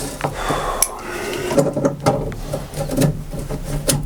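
Scattered clicks, knocks and rubbing of tools and parts being handled during plumbing work.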